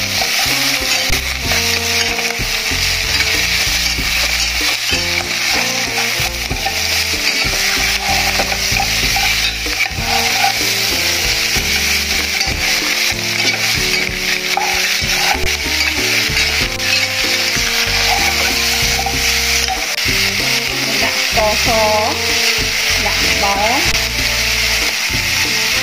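Pork trotter pieces sizzling steadily in an aluminium pot while being stirred with a metal spoon.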